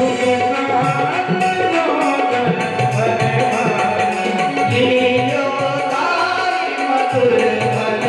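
Devotional bhajan music: tabla playing a steady rhythm under the sustained reedy tones of a harmonium, with a male voice singing.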